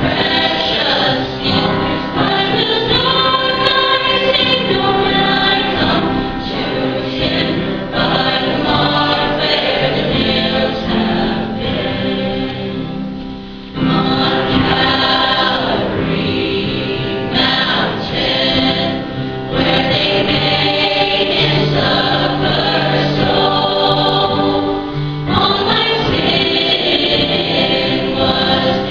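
High school choir singing an arrangement of a traditional hymn in sustained chords. The sound thins briefly about halfway through before the next phrase comes in.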